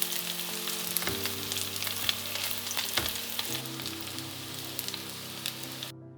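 Food frying in oil in a pan: a steady sizzle full of sharp crackles and pops, cutting off abruptly near the end. Quiet background music with sustained notes plays underneath.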